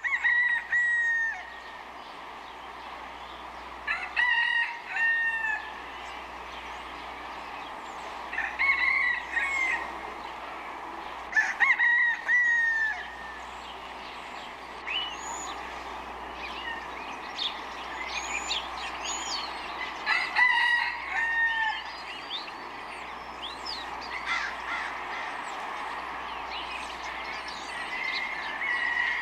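Rooster crowing, about five cock-a-doodle-doo calls spaced a few seconds apart, with small birds chirping in between over a steady background drone.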